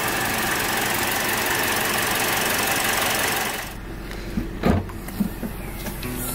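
Toyota Yaris 1.33-litre four-cylinder petrol engine running steadily with the bonnet open. After about three and a half seconds it gives way to a few clicks and a louder clunk from the tailgate latch being released and the hatch opened.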